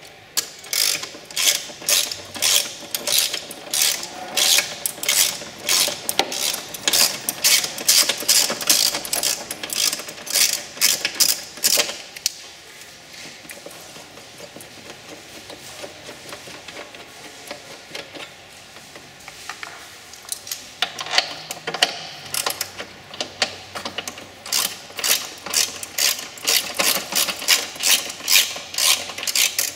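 Hand socket ratchet clicking in fast runs as studs are backed out of the engine computer's mounting on the firewall. There is a quieter stretch of about eight seconds in the middle before the clicking starts again.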